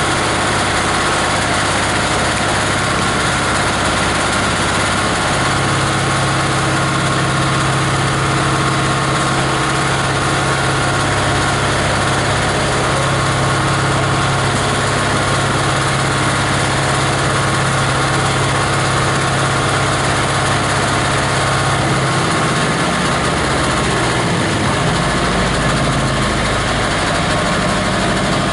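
The grinder's 18 HP diesel engine running steadily with a dense mechanical din. Its low hum shifts about five seconds in and changes again near the end.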